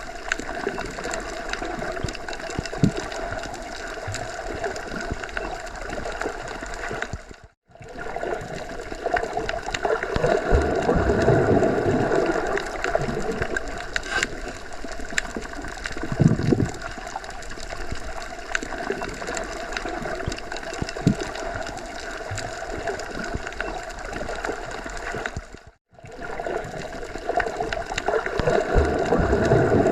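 Underwater ambience: a continuous watery rush and gurgle that swells and eases, with a faint steady mechanical hum under it. It drops out briefly twice, about a third of the way in and again near the end.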